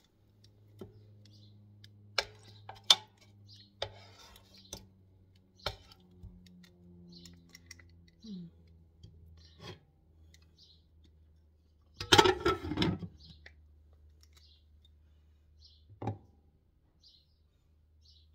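Kitchen tongs clicking and tapping against a nonstick electric frying pan as chicken drumsticks are turned over, a few sharp clicks spread over the first ten seconds. About twelve seconds in comes a louder rattling clatter as the glass lid is set on the pan, then one more knock, all over a low steady hum.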